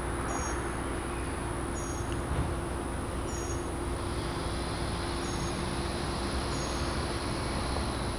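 Steady background hiss and hum with a faint, short, high chirp repeating about every one and a half seconds.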